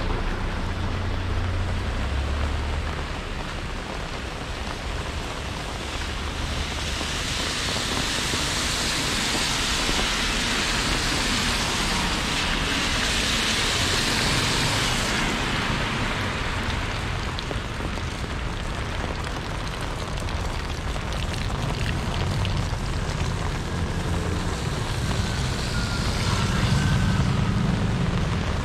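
Rain with city traffic on wet streets: a steady hiss over a low engine rumble. The hiss swells for several seconds from about a fifth of the way in.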